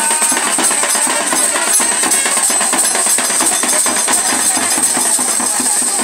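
Traditional drum music: a drum beaten in a fast, steady rhythm, with a continuous metallic jingle over it.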